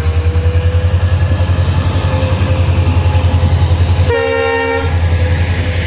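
Indian Railways diesel locomotive passing close, its engine a heavy low rumble that pulses several times a second, with one short blast of its multi-note horn about four seconds in.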